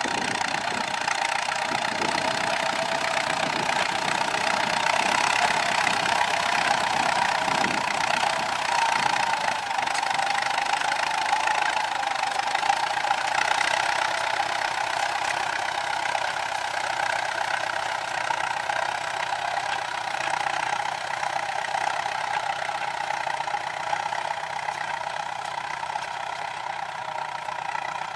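Ford 6610 tractor's four-cylinder diesel engine running steadily while plowing, a little louder in the middle and easing off slightly near the end.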